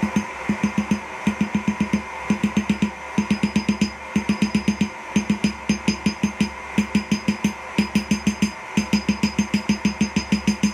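Hand hammer striking a hot 3/8-inch round steel bar on an anvil: quick blows, about four a second, in runs of several with short pauses, each blow with a short ring.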